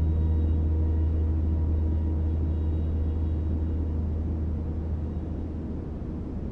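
The deep, low tone of a struck gong ringing on and slowly fading, its faint higher overtones dying away in the first few seconds, over a steady rushing noise.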